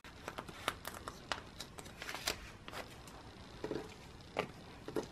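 Photocards and plastic sleeves being handled at a binder: a scatter of light clicks and taps with a few soft plastic rustles.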